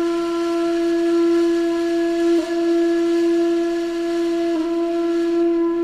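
A flute-like wind instrument holds one long, steady note, with two brief catches in the tone about two and a half and four and a half seconds in.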